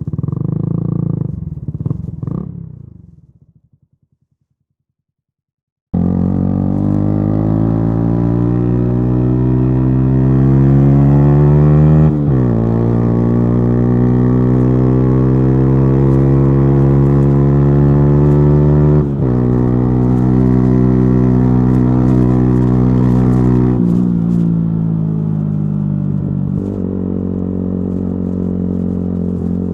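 Yamaha YZF-R125's single-cylinder four-stroke engine through a modified exhaust, under way. The sound fades out in the first few seconds and is gone for about two seconds, then comes back abruptly. The engine note then climbs steadily in long pulls, dropping sharply at each upshift, twice, before falling back to a lower, steady note near the end.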